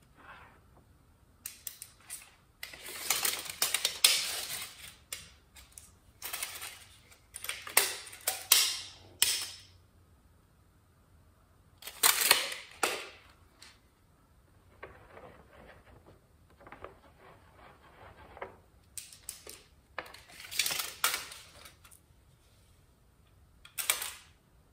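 Steel tape measure being pulled out and let back in, its blade rattling and clicking, along with a sheet of paper being handled, in several bursts of a few seconds each.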